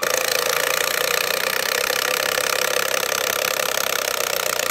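Cordless impact driver starting abruptly and running continuously, driving a screw into the wooden poles of a fence jack: a steady, rapid hammering rattle.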